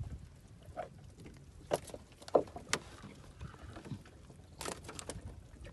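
Irregular sharp knocks and taps on a small fishing boat, about half a dozen, over a steady low rumble of wind and water against the hull.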